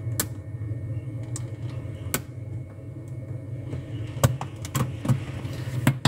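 Scattered sharp clicks as a metal pick pushes back the plastic retaining latches of a Dell Inspiron N5050 laptop keyboard, to release it. The clicks come most often near the end, over a steady low hum.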